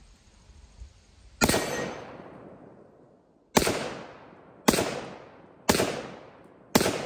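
Five shots from an AR-10 .308 semi-automatic rifle: one, then after about two seconds four more about a second apart. Each sharp crack is followed by a long fading echo.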